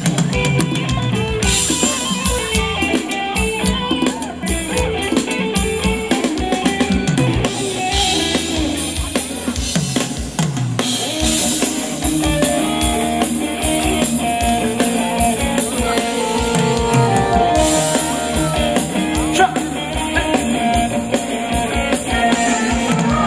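Live band playing Thai ramwong dance music over a PA, driven by a steady drum-kit beat.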